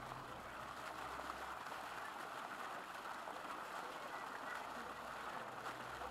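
Faint, steady background noise, an even hush with no distinct sound in it.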